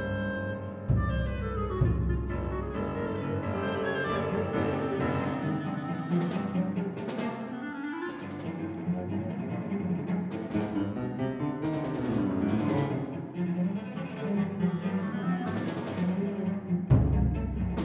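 Contemporary chamber music for cello, clarinet, piano and percussion, led by sustained cello lines. Deep low strokes sound at the start and again near the end, and sharp percussion strikes come now and then.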